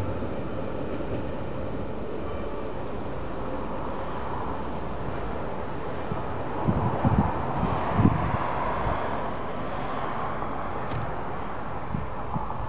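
Diesel railcar running as it pulls away along the line: a steady rumble, a little louder near the middle, with a few low thumps about midway.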